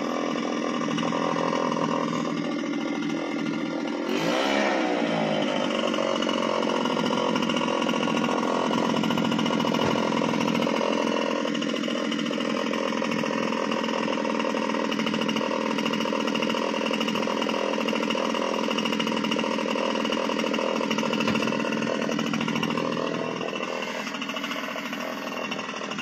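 Gas-powered backpack leaf blower running steadily at high throttle, blowing chaff out of a hay baler; the engine note wavers briefly about four seconds in and drops slightly near the end.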